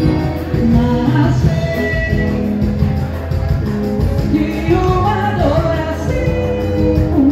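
Dance music with a singing voice over a steady beat.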